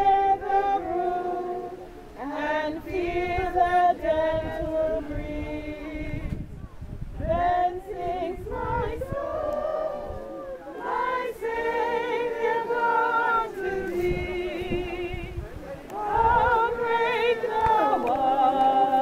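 A group of mixed men's and women's voices singing together unaccompanied, in long held phrases with short breaks between lines.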